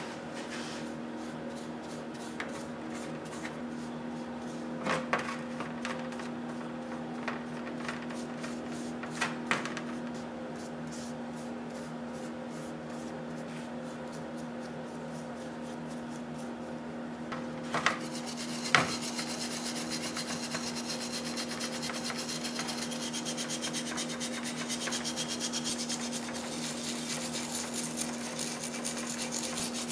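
A stiff brush scrubbing the painted metal body of a bottle jack in rapid back-and-forth strokes, with a few knocks of the brush against the metal. About 18 seconds in, the scrubbing gets louder and harsher, and a steady low hum runs underneath.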